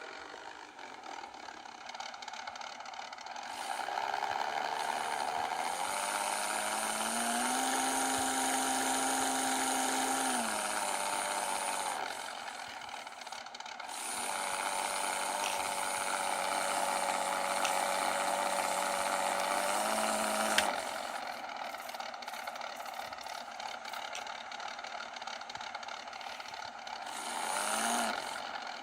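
Diesel engine sound effect played by the sound module of a 1/35 scale Orlando F-150 model truck: an idle that revs up and holds for a few seconds before dropping back, twice, with a brief rev again near the end. A sharp click comes just as the second rev drops.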